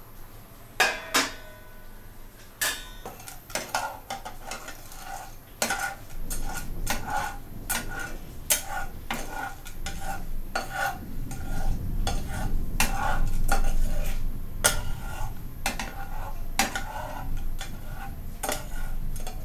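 Metal spatula stirring popcorn kernels in hot oil around a nonstick wok. It makes repeated scrapes and clicks, about two a second from a few seconds in, and the pan rings briefly with each stroke.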